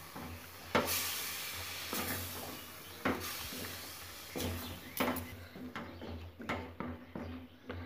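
Wooden spatula stirring broccoli through a spice gravy in a wok, with knocks and scrapes against the pan about once a second. Under it a sizzling hiss from the hot pan fades out about five seconds in.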